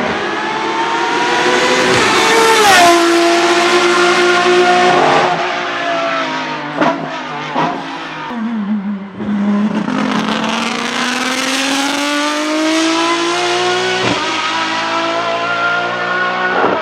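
Race car engine at high revs, its pitch climbing and then dropping abruptly at each gear change, falling for a while mid-way before climbing steadily again. A few short sharp cracks come at the shifts.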